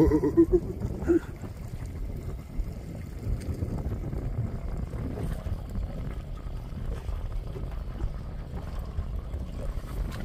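Wind buffeting the microphone on an open boat, a steady low rumble, with a sharp knock at the very start and a short wavering tone in the first second.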